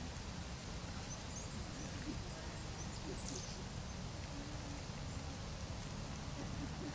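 Outdoor ambience: a steady low rumble with a few faint, high, short bird chirps in the first half.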